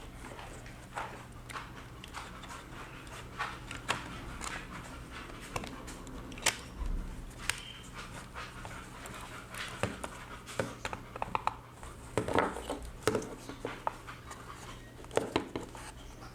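Scattered small clicks and taps of plastic earphone parts being handled and fitted back together, over a low steady hum.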